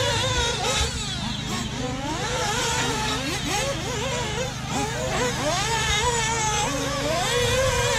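Several RC racing buggies running laps together, their motors whining up and down in pitch as they accelerate and brake through the track, the whines overlapping, over a steady low hum.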